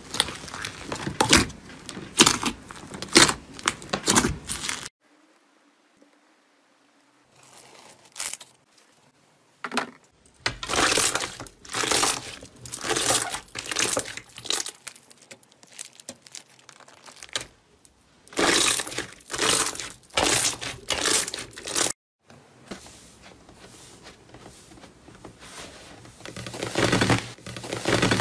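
Slime being squeezed, stretched and pressed by hand, giving quick crackling, crinkly pops in bursts. There is a much quieter stretch from about five to ten seconds in, and the sound cuts off abruptly several times.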